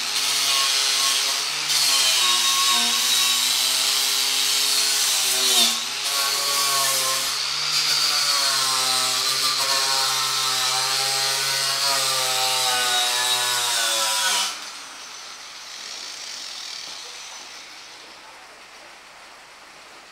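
Corded handheld electric power tool running against a metal ammunition box, a steady motor whine whose pitch wavers and dips a few times. It cuts off abruptly about three-quarters of the way through, leaving a faint steady hiss.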